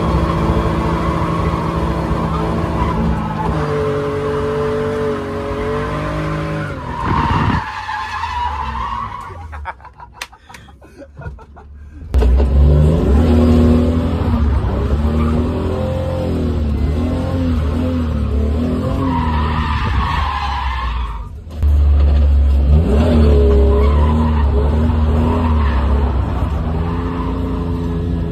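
A car's engine revving up and down while its tyres squeal as it drifts. The sound drops away for a couple of seconds about ten seconds in, then comes back suddenly loud.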